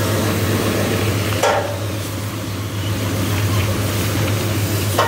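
Water from a garden hose spraying onto a tractor's tyre and body, a steady hiss, over the steady low hum of an engine running. There are two brief louder splashes, one about a second and a half in and one near the end.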